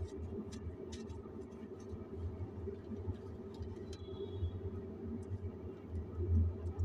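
A steady low hum with scattered light clicks, and a faint short high tone about midway.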